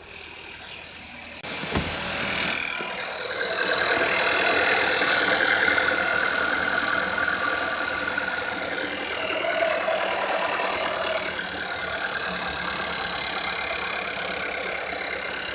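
SEAT Ateca 1.4 TSI 150 hp ACT turbo petrol four-cylinder engine starting about a second and a half in, then running at idle with a loud, steady, high-pitched rattling clatter that owners liken to a sewing machine or a playing card on bicycle spokes. It is a known fault on 2017–2018 engines of this type, which the uploader links to the high-pressure fuel pump.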